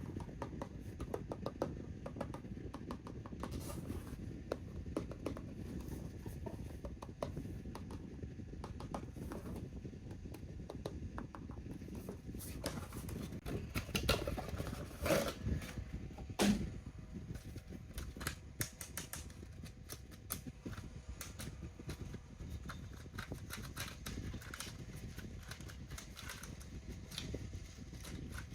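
A boxed toy being handled and unpacked: steady rustling with many small clicks and taps of cardboard and plastic, and a few louder knocks about halfway through.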